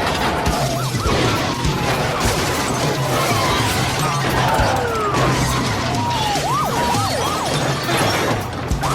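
Police car pileup sound effect: repeated crashes and shattering glass over running car engines. It also has short screeches that rise and fall, several in quick succession in the second half.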